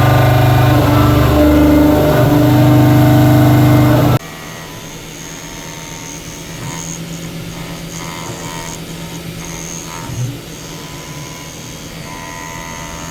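CNC machine's motors running with a steady, loud hum, cutting off abruptly about four seconds in, leaving a quieter whir with faint high-pitched whines.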